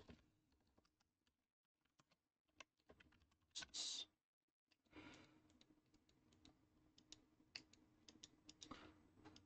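Faint computer keyboard typing: scattered keystrokes and short runs of clicks, with one slightly louder burst about four seconds in.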